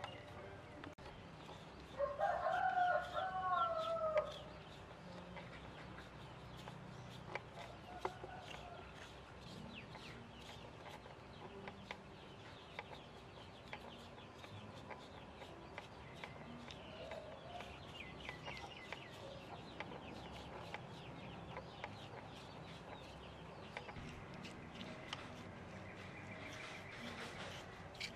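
A rooster crows once, about two seconds in. After that only a faint low background with scattered light ticks remains.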